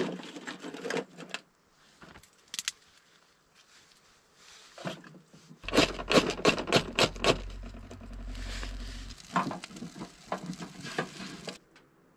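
Dry kindling sticks knocking and clattering as they are laid into a small portable titanium wood stove, then a quick run of sharp scraping clicks over a low rumble as the kindling is lit. More wood clicks follow near the end.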